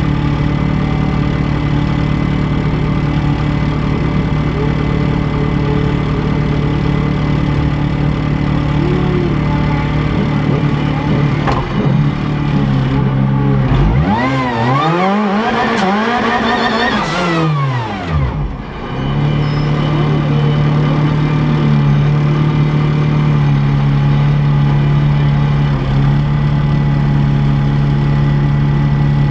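Race car engine idling steadily, heard from inside the stripped cabin. About halfway through the throttle is blipped several times in quick succession, the revs rising and falling, before it settles back to idle.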